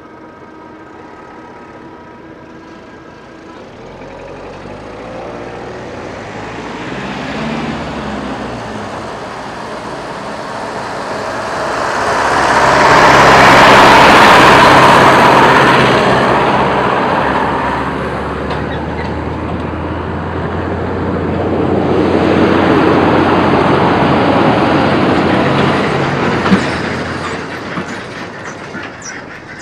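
A tractor towing a trailer drives over the level crossing, growing louder to a peak as it passes close about halfway through, with a second, smaller swell later and a sharp click near the end. In the first few seconds a faint steady level-crossing warning tone dies away as the barriers lift.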